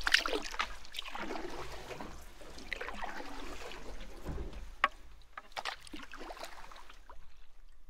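Canoe paddle strokes in calm river water: the Bending Branches paddle blade dipping and pulling through the water, with small splashes and drips every second or so.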